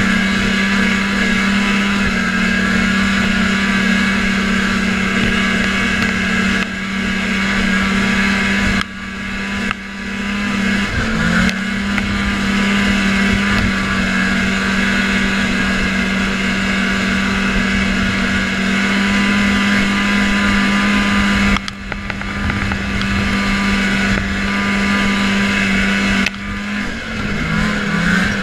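1980 Arctic Cat Panther 440 fan-cooled two-stroke snowmobile engine running at steady throttle while riding, its track and engine drone continuous, with the throttle eased off briefly a few times, about a third of the way in and twice in the last third.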